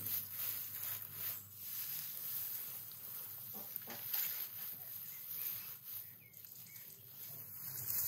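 Dry straw rustling and crackling unevenly as handfuls are gathered and pushed into a heap by hand.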